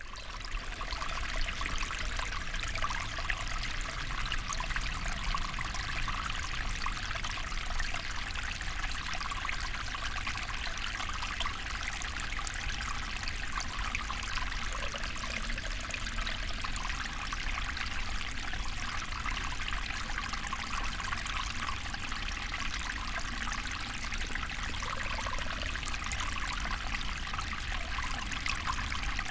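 A small river flowing and trickling steadily, a bright babbling of water over stones.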